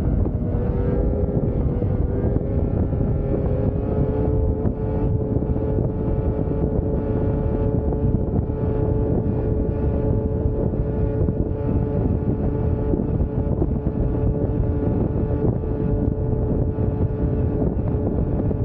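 2001 Yamaha VMAX 600 snowmobile's two-stroke three-cylinder engine held at high revs, its pitch climbing slightly in the first second and then holding steady, with wind buffeting the microphone.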